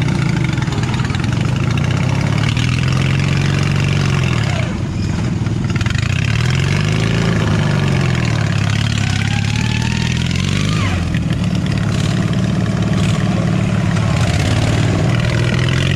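Lawn tractor engine on an off-road mud mower working hard up a steep muddy bank, its revs rising and falling several times as it pulls.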